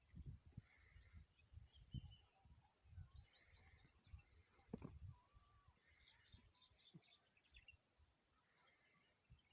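Faint bird chirps and twitters, with irregular low thumps and rumble underneath.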